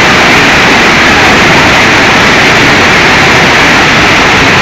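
Floodwater rushing and churning across a warehouse floor in a loud, steady roar of water noise.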